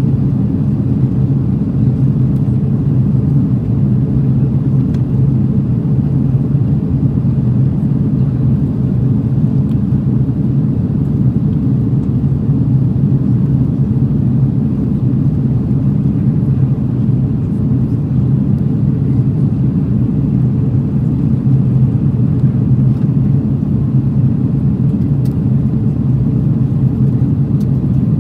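Steady, loud cabin rumble of an Airbus A330-200 airliner in flight: engine and airflow noise heard from inside the passenger cabin.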